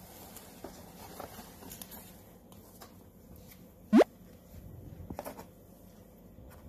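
A quick rising whistle-like editing sound effect about four seconds in, the loudest thing here, over faint rustling and light scratches of a cat shifting in a cardboard box.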